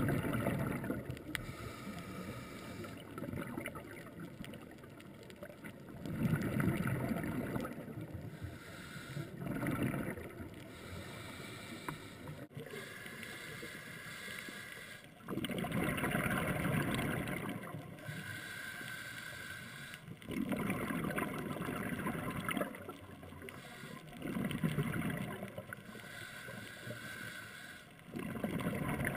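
Scuba diver breathing through a regulator underwater: exhaled bubbles rush out in swells of about two seconds, every few seconds, with a steady hiss in between.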